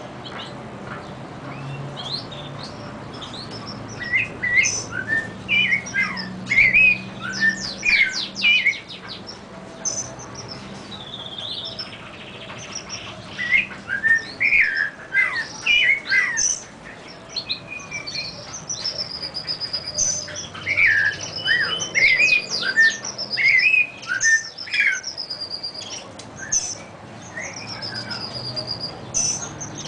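Songbirds singing together: a domestic canary, a clarín (brown-backed solitaire) and a curve-billed thrasher. Bursts of rapid chirps and trills come and go, and in the second half a high falling whistled note repeats again and again.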